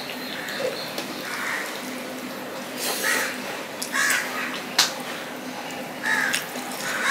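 Eating sounds: fingers mixing rice and fish curry on a steel plate, and chewing, with a sharp click about five seconds in. Several short harsh bird calls sound in the background.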